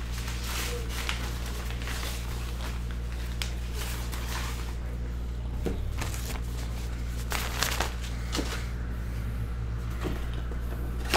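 Handling noise: a nylon drawstring bag rustling and a small cardboard box being set down and handled, with a few light knocks and scrapes. A steady low hum runs underneath.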